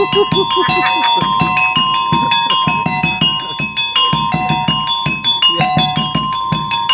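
Street monkey-show accompaniment played live: a struck metal keyed instrument plays a quick repeating tune over rapid drumbeats, with one high metallic note ringing on steadily underneath.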